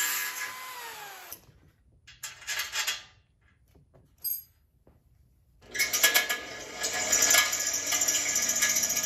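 Corded electric drill boring into a steel vehicle frame rail. The motor winds down about a second in, a few light knocks and clatters follow, then the drill starts again a little past halfway and keeps running into the metal.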